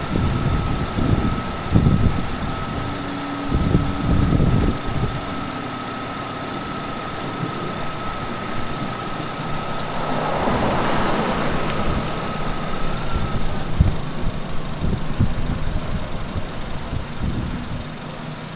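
Wind buffeting the microphone in low, uneven rumbles, strongest in the first few seconds, with a vehicle passing on the road about ten seconds in. A steady high tone runs under it and stops about two-thirds of the way through.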